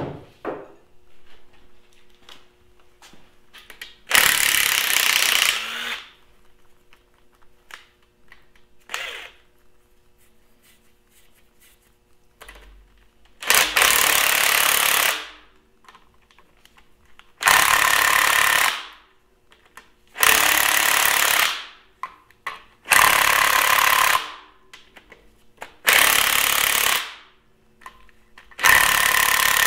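Cordless impact wrench hammering on bolts in a cast-iron Farmall Super M engine block, in seven bursts of one to two seconds each with pauses between. The bolts are not breaking loose easily: seized fasteners on a neglected engine.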